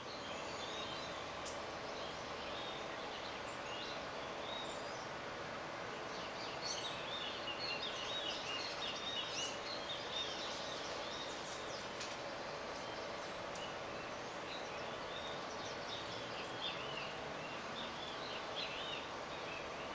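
Outdoor ambience with small birds chirping, many short high calls overlapping, busiest in the middle, over a steady background hiss.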